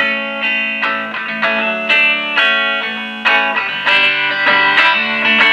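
Electric guitar loop, an Edwards Les Paul through a Dr. Z Maz 18 head, playing a run of picked notes and chords through a pine 4x10 cabinet with all four WGS Veteran 10 speakers connected.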